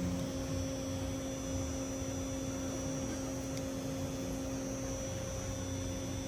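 Steady electrical hum with a faint high whine over a low hiss. A lower tone cuts off just after the start.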